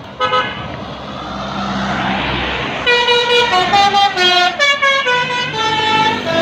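A bus's Basuri telolet horn: one short toot near the start, then from about three seconds in a quick run of changing notes playing a melody.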